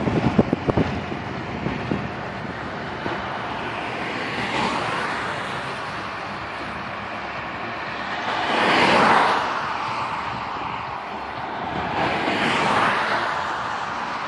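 Steady road and wind noise of a car driving along a highway. A few times it swells up and fades again, loudest about nine seconds in.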